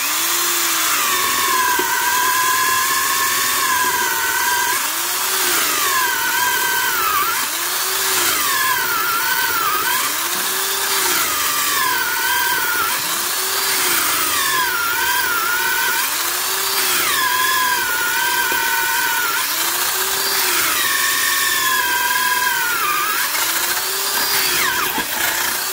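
Montgomery Ward Powr-Kraft 3/8-inch drill's 2.2-amp motor boring into wood with a 1/2-inch spade bit, running as soon as it starts. Its whine sags in pitch and recovers about every two seconds as it bogs down under the load: the drill is weak and underpowered for the bit. It winds down at the end.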